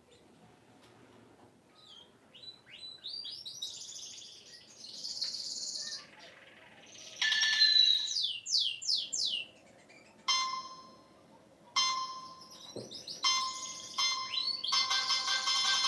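Nokia 3220 ringtones played through the phone's speaker. First comes a string of rapid rising chirps that sound like birdsong, then a run of falling whistle-like sweeps, then a few short separate electronic tones. A busier melodic ringtone with quick rising note runs starts near the end.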